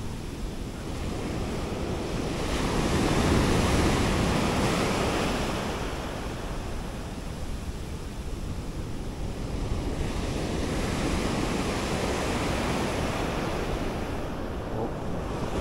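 Ocean surf washing on a beach, one wave swelling louder about three to five seconds in, with wind buffeting the microphone.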